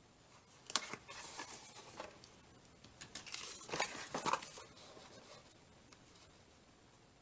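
Cardstock and patterned paper being handled: a sharp tap under a second in, then crisp rustling and crinkling of the paper pieces in short spells, busiest a little past the middle.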